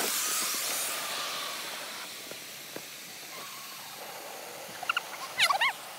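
Inflatable liferaft being fired off: gas from its cylinder rushes into the tubes with a loud hiss that eases off over the first two seconds and then goes on more quietly. A few short, high squeaks come about five seconds in.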